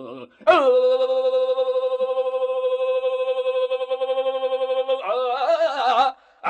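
A man singing a line of a Telugu padyam (verse) with a drawn-out raga in the old stage style, holding one long steady note for about four and a half seconds. Near the end it breaks into a wavering, ornamented run of notes, then cuts off.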